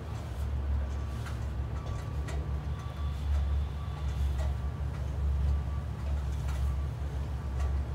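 A steady low rumble, with light clicks and knocks from an aluminium extension ladder as a worker climbs down its rungs.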